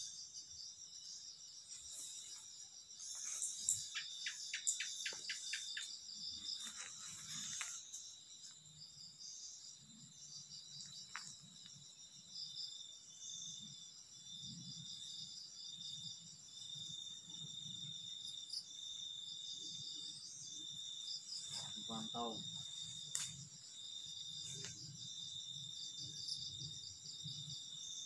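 Crickets and other night insects trilling steadily in a high-pitched chorus, with a run of rapid clicks and rustles a few seconds in.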